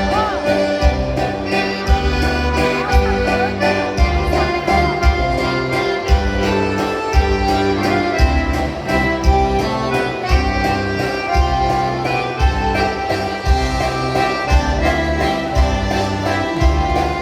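Lively music led by accordion, with a steady bass beat.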